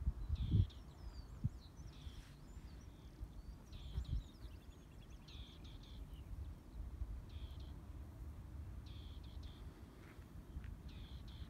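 A small bird calling repeatedly in short, high chirping and warbling phrases about every second or two, over a low, gusty rumble of wind on the microphone.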